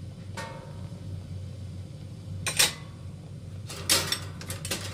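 Sharp clinks and knocks of kitchenware against a cooking pot: one about half a second in with a brief ringing, another near the middle, and a quick cluster near the end, over a steady low hum.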